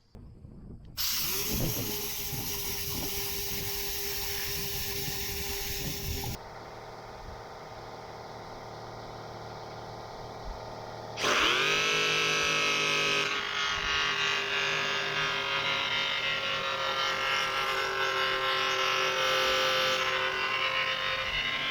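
Electric motors running in three cut-together clips, each with a steady hum. About eleven seconds in, a motor spins up and then runs steadily at a higher level.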